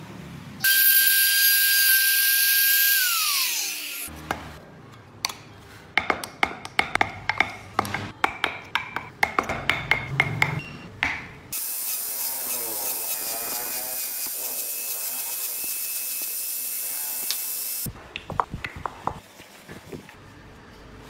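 Woodworking tools on small wooden model wheels: a small power tool runs with a high whine that falls away as it winds down about three seconds in, then a hand carving tool clicks and taps quickly on the wood for about five seconds. A power tool then runs steadily with a high hiss for about six seconds, followed by a few more clicks.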